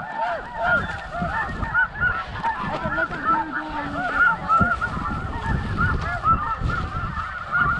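A flock of snow geese calling: a dense, unbroken chorus of short, high yelping honks overlapping one another, over a low rumble.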